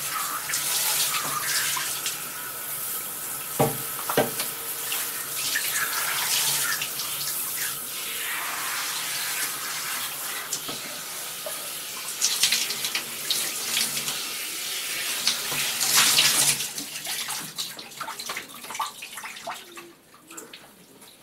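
Handheld shower head spraying water that splashes onto wet clothing and into the bathtub, with two sharp knocks about four seconds in. The spray dies away near the end.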